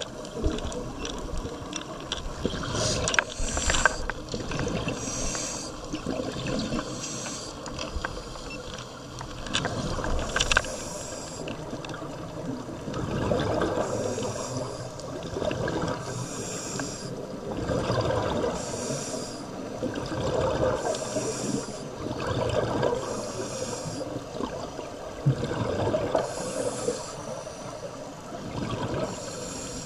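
Scuba regulator breathing underwater: a short hiss with each inhaled breath every two to three seconds, alternating with the bubbling of exhaled air.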